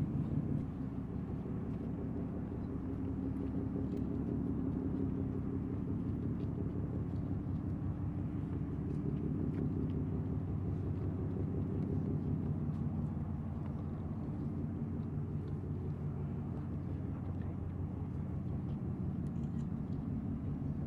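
Low, steady drone of a Ro-Ro ferry's diesel engine as the ship sails past at cruising speed.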